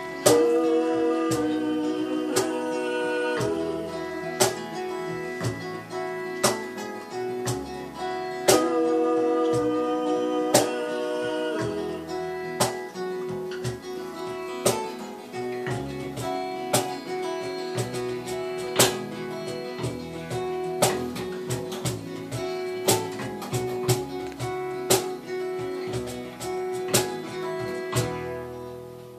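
Acoustic guitar strummed in a steady rhythm, a wordless instrumental passage of a folk song, dying away near the end.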